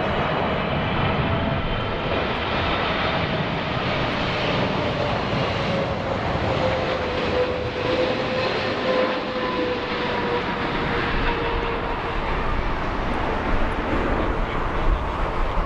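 Jet airliner's engines passing low overhead on landing approach: a loud steady roar with a whine that slowly falls in pitch.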